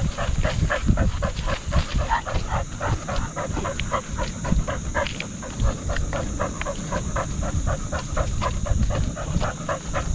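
A dog panting fast and rhythmically, about four breaths a second, close to a harness-mounted microphone, over a low rumble of movement.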